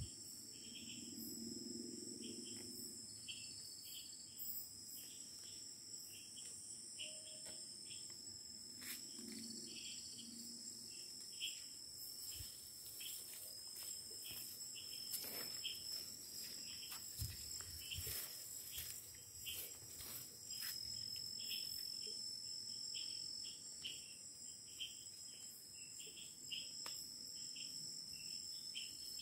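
Night-time chorus of crickets and other insects in tropical forest: a steady high-pitched trill with a lower chirp repeating about twice a second. Scattered snaps and rustles of footsteps through the undergrowth.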